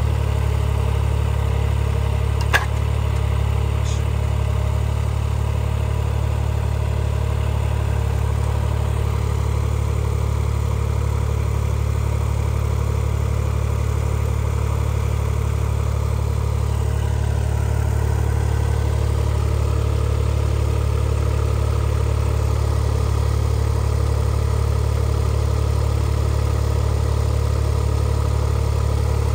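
Ditch Witch 410SX cable plow's engine running steadily at idle, with one sharp click about two and a half seconds in.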